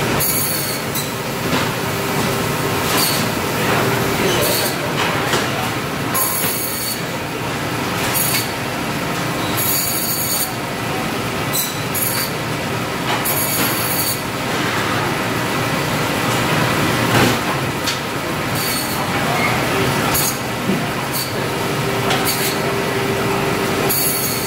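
Large stainless-steel meat band saw running continuously while lamb is cut into primals. The blade gives about a dozen short, high-pitched squeals as it cuts through the carcass pieces.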